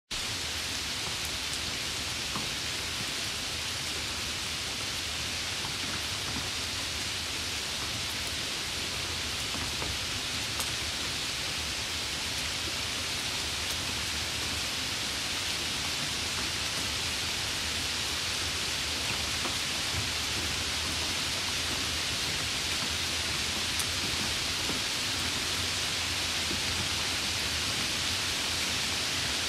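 Steady rain falling, an even hiss with a few sharper drop ticks now and then.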